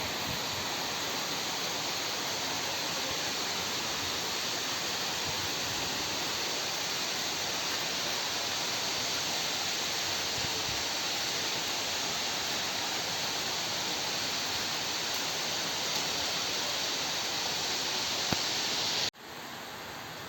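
Steady rain falling, a dense even hiss. About nineteen seconds in it cuts off abruptly to a quieter steady hiss.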